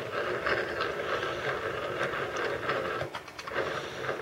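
Stanley 700 corner vise being cranked shut by its handle: the metal screw turning with an irregular run of small metallic clicks and rattles as the jaws close.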